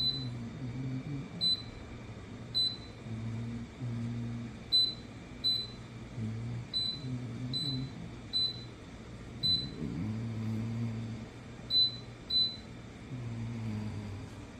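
Short electronic beeps, about a dozen at irregular intervals, like the keypad of an appliance control panel beeping at each button press. A low hum comes and goes underneath.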